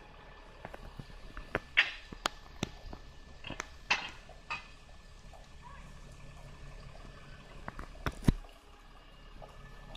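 ADL Enviro200 single-deck bus idling with a low, steady engine hum, overlaid by irregular sharp clicks and taps. The loudest of these fall about two, four and eight seconds in.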